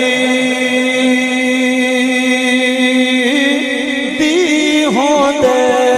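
A man's voice chanting a verse in a sung style: one long held note, then about three seconds in a wavering run of quick pitch turns that settles onto another held note.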